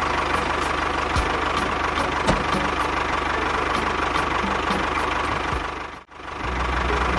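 Tractor engine running steadily with a regular low knock. It drops out briefly about six seconds in and starts again.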